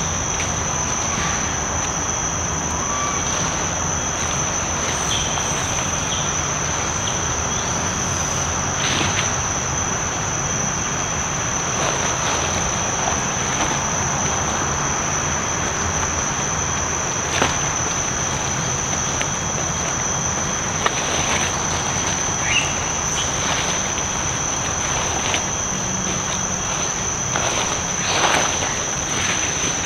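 Steady high-pitched drone of forest insects, with a fainter second tone beneath it, over a noisy forest background. A few short crackles stand out now and then.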